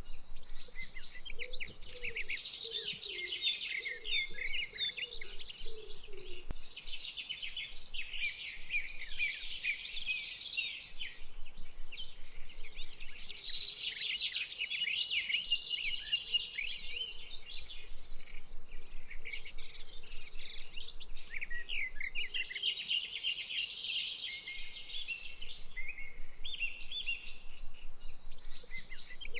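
A dense chorus of birds chirping and trilling without a break, many quick high calls overlapping.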